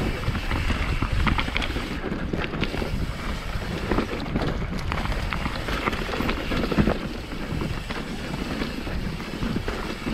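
Wind buffeting a helmet-mounted action-camera microphone over the steady rumble of an NS Define enduro mountain bike riding down a dirt trail, with frequent short rattles and knocks from the bike as its tyres go over rough ground.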